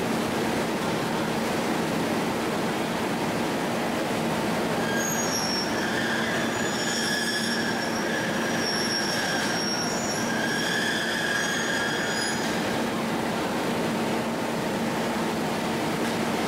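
Steady factory machinery noise with a constant hum from an LPG cylinder furnace and chain-conveyor line, with a high metal-on-metal squeal in several pitches from about five seconds in to about twelve seconds in.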